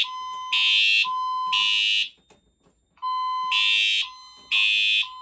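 Fire alarm system in alarm, sounding the temporal-three evacuation signal: harsh horn blasts in groups of three with a pause between groups, and a plain steady tone in the gaps between blasts.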